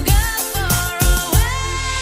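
Dance-pop music: a steady kick-drum beat under a gliding synth or vocal line. The beat drops out about three quarters of the way in, leaving one long held note.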